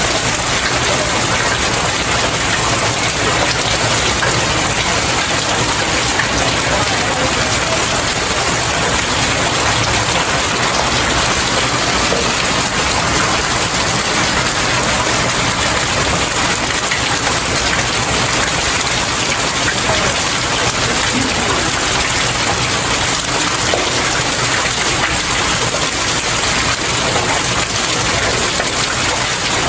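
Steady rain falling and pattering on outdoor stairs, a dense even hiss of drops with no let-up.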